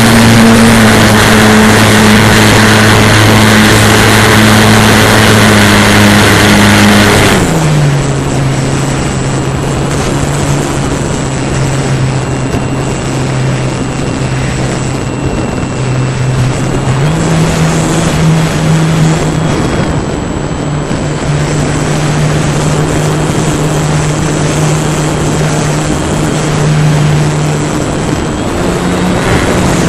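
A radio-controlled model airplane's motor and propeller heard from a camera on board, running at a steady pitch over wind rush. About seven seconds in the throttle is pulled back and the pitch and loudness drop; the pitch then steps up a little a bit past halfway and again near the end.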